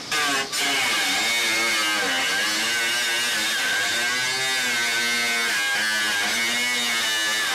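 Small handheld electric power tool running continuously with a buzzing whine, its pitch wavering up and down as it is loaded while cutting strips of carbon fibre.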